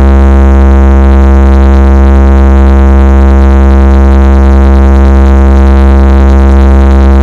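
Very loud, steady low bass vibration tone from a P.Sound DJ speaker system, held at one pitch with no beat, distorted into a buzzing stack of overtones.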